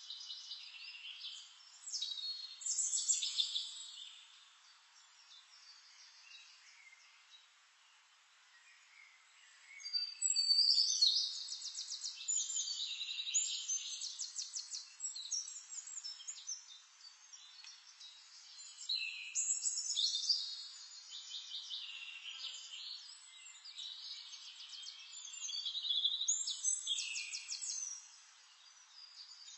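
Songbirds singing in repeated phrases of rapid high trills and chirps, with a quieter stretch between about four and ten seconds in.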